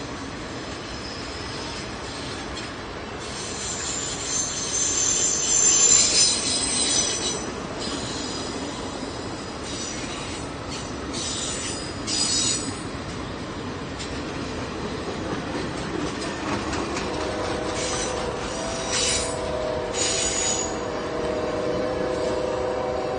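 Passenger cars of a Norfolk Southern office car special rolling past with a steady rumble and high-pitched wheel squeal. The squeal comes in bursts, loudest about six seconds in and again around ten to twelve and nineteen to twenty seconds in. In the last few seconds a steady horn sounds in the distance.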